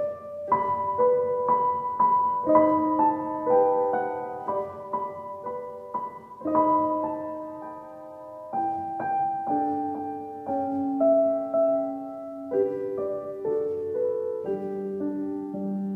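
Slow, gentle solo piano music: notes and chords struck at an even pace, each ringing and fading.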